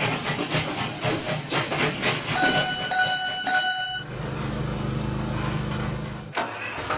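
Train running with a rhythmic clickety-clack of wheels over rail joints, several clacks a second. About two and a half seconds in, a train horn sounds for about a second and a half. A low, steady engine hum follows and cuts off abruptly near the end.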